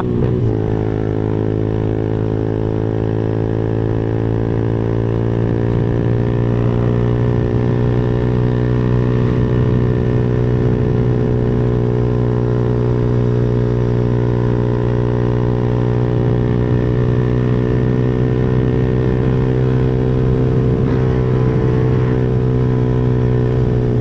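Motorcycle engine running through a Pro Liner aftermarket muffler while riding, a steady, really noisy exhaust note. Its pitch climbs slowly over the first several seconds as it picks up speed, then holds, easing off slightly near the end.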